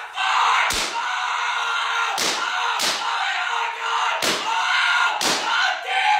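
A series of five loud slams, irregularly spaced about a second apart, over a continuous harsh, loud din.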